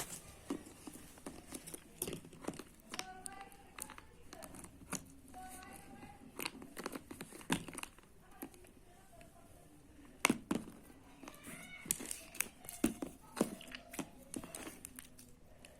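Slime being squeezed and pulled by hand, making many short sticky clicks and pops at an irregular pace.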